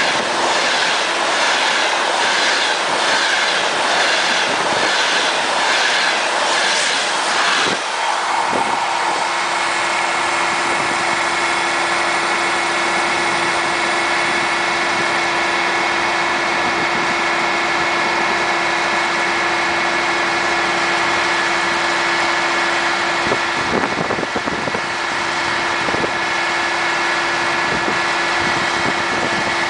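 A Frecciargento high-speed train passes at speed on the next track, its wheels clattering over the rails in a rapid, even rhythm that stops abruptly about eight seconds in. After it, the steady drone of the ALn668 railcar's diesel engine remains, with a held low hum.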